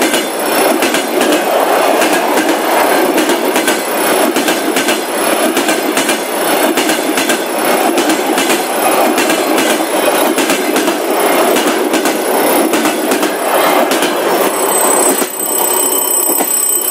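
Passenger coaches of a train passing at close range: a continuous rumble and rattle of wheels on rail, with quick clicks as the wheels run over the rail joints. About fifteen seconds in, as the last coach goes by, the rumble drops away and a steady high ringing tone is left.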